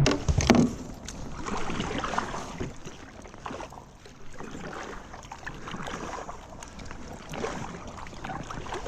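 Water splashing and lapping around a kayak on a river, with small scattered knocks.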